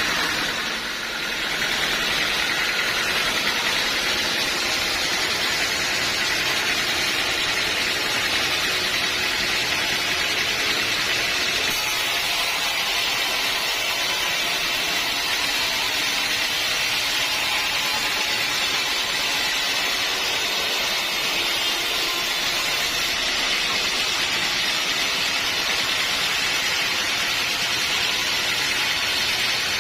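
Sawmill running steadily while its saw cuts through an old teak log.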